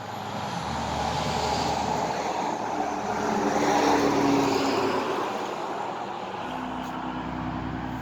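A road vehicle driving past, growing louder to a peak about four seconds in and then fading, its engine note dropping slightly as it goes by.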